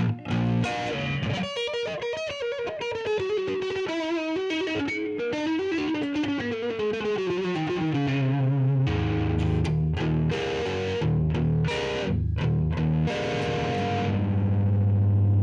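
Electric guitar played through a Donner Jet Convolution flanger pedal, with a sweeping, jet-like wash over the tone. A descending run of single notes gives way, about nine seconds in, to chopped low chords and then a long, ringing low note.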